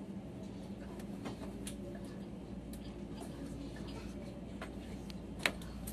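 Quiet running noise inside a locomotive-hauled sleeper coach: a steady low hum and rumble, with scattered light clicks and one sharper click about five and a half seconds in.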